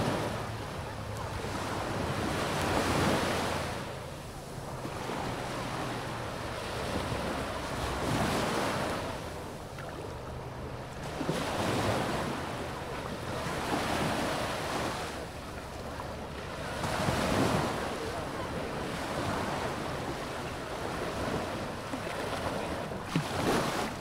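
Sea waves breaking and washing up a sandy beach, the surf swelling and fading every few seconds, with wind buffeting the microphone.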